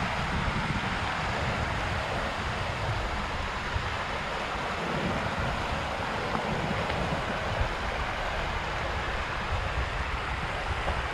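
Shallow rocky mountain stream rushing over stones and small cascades, a steady hiss, with wind buffeting the microphone in an uneven low rumble.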